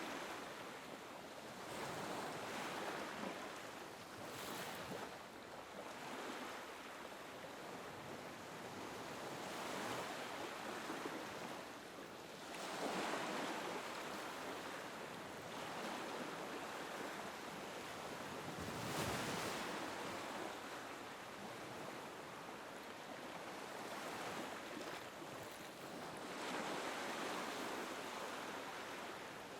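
Small waves lapping and breaking on a beach, each wash swelling and fading every few seconds over a steady hiss of surf, with some wind.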